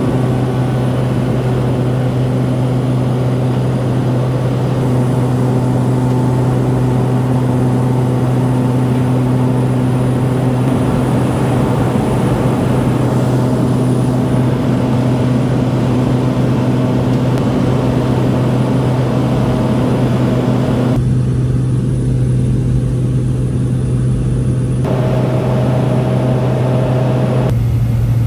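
Cabin drone of a Cessna 208B Grand Caravan's single PT6A turboprop engine and propeller in the climb just after takeoff: a loud, steady hum with a strong low tone and fainter higher tones over a rushing noise.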